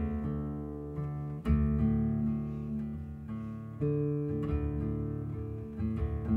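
Soundtrack music: slow, sustained chords with a new one struck about every two seconds and left to ring out.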